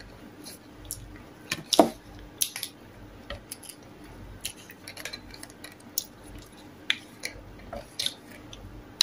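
Scattered light clicks and crinkles of a small paper drink carton of coconut water being worked open by hand at its top, with one louder click about two seconds in.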